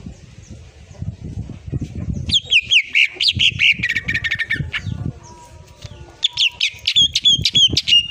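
Greater green leafbird (cucak ijo) singing two bursts of quick, falling high notes: one about two seconds in and one about six seconds in. Low rustling and soft thumps run underneath.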